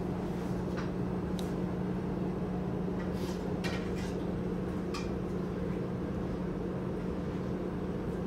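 Steady hum of restaurant kitchen machinery with a held low tone, broken by a few faint clinks, most of them in the first five seconds.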